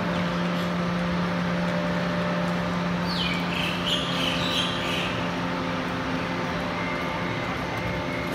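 Steady hum of a Kaohsiung MRT Red Line train standing at a station with its doors open, its onboard equipment droning. A brief high chirping comes in a few seconds in, and a steady high beep starts near the end.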